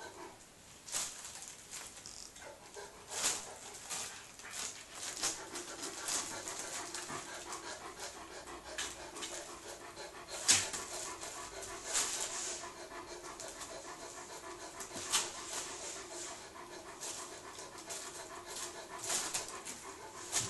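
Clear plastic bag crinkling and rustling in irregular bursts as a Bengal kitten paws and bites at it inside a cardboard box.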